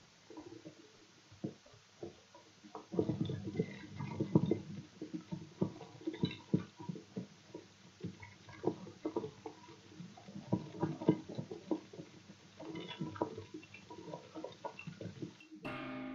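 Irregular wet chewing and tearing as roasted cat meat is gnawed, many short smacks and crunches. Music comes in just before the end.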